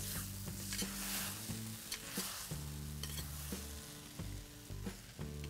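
Chilli mushroom in a thick hot garlic sauce sizzling in a hot metal wok as it is stirred and scooped with a ladle, the stirring strongest in the first half. Background music with low sustained notes runs underneath.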